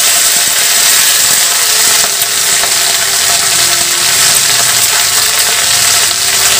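Chopped wet cauliflower leaves sizzling in hot mustard oil in an iron kadai, a steady frying hiss.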